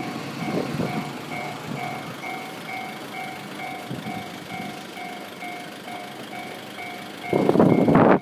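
Japanese railway level-crossing warning bell ringing, an electronic two-tone ding repeating about twice a second. Near the end a loud rush of train noise cuts in over it as the train reaches the crossing.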